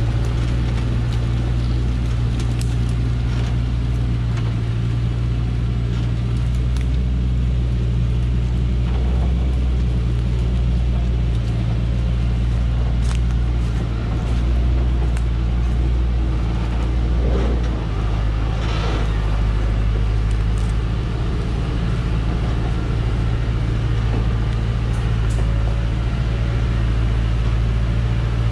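Dongfeng logging truck's diesel engine running steadily at low speed under a full load of acacia logs, a deep even drone. Occasional light clicks and snaps sound over it.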